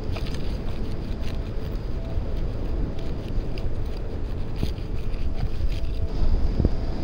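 Wind buffeting the microphone: a low, gusting rumble, with a few faint ticks over it.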